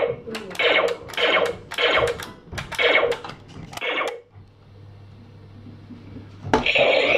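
Nerf Laser Ops Pro AlphaPoint laser blaster's electronic firing sound effect, triggered about six times in quick succession, roughly one shot every two-thirds of a second. After a pause of about two seconds it fires once more near the end.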